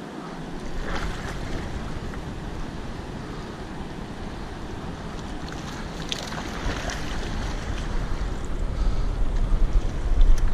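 Steady rush of dam tailwater and wind on the microphone, the wind getting louder and gustier in the second half. A hooked skipjack herring splashes at the surface about six seconds in.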